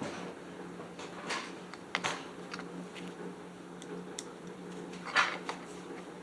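Scattered small clicks and taps of parts and tools being handled while screws go into a chainsaw's housing, the loudest near the end, over a steady low hum.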